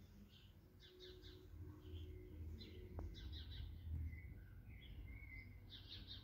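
Faint birdsong: small birds chirping in quick clusters of short high notes, with a few brief whistles, over a low steady rumble.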